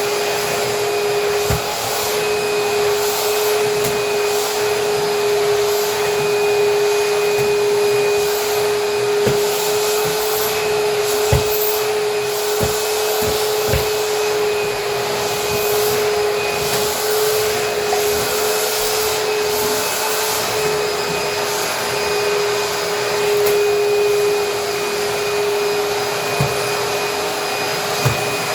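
Vacuum cleaner running steadily: a constant motor whine over rushing suction air, with a few short low knocks scattered through.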